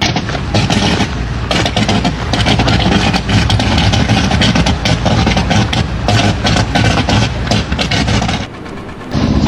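A heavy engine running, with dense, irregular clattering and knocking over it; it drops away shortly before the end.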